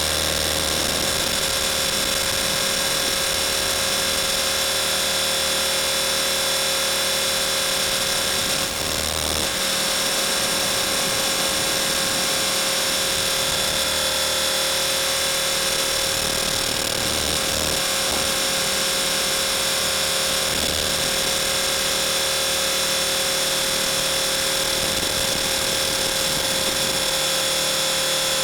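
Blade 450 3D electric RC helicopter's brushless motor and rotor head running at a steady speed: a constant whine that holds one pitch throughout, with a brief slight dip in level about nine seconds in.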